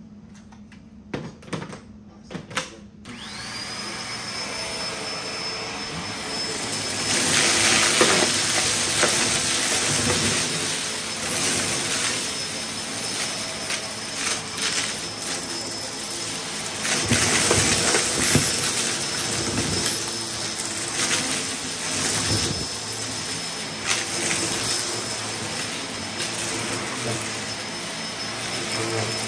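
A few sharp clicks, then about three seconds in an upright vacuum cleaner switches on, its motor whine climbing and settling at a steady high pitch. It then runs steadily, louder in stretches and crackling with small clicks as it sucks up confetti, sequins and balloon pieces from a mat.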